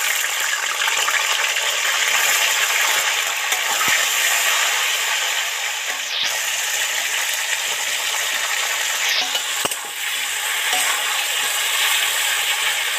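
Cauliflower florets frying in hot oil in a karahi: a loud, steady sizzle that starts suddenly as they go into the oil, with a few brief clicks over it.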